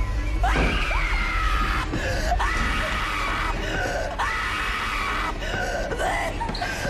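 A girl screaming in terror: a run of long, high screams, one after another, with short breaks between them.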